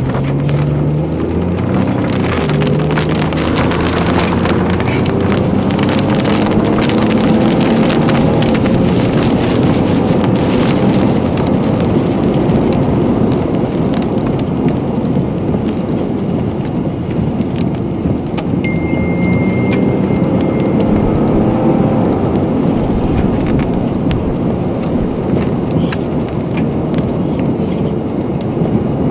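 Heavy rain pelting a moving vehicle, with a steady loud rush of wind and rain and an engine whose pitch rises and falls as it speeds up and slows.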